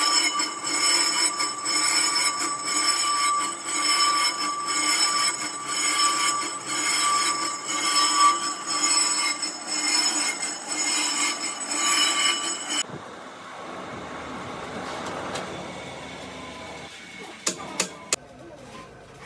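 Lathe tool cutting a cast iron truck brake drum, a harsh metallic scraping with several steady high ringing tones. The cut stops abruptly about two-thirds of the way through, leaving quieter machine noise and a few sharp metallic clicks near the end.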